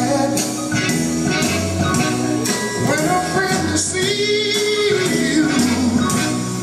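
A song with a singer over a band, played as the music for an American Foxtrot, with one long held sung note about four seconds in.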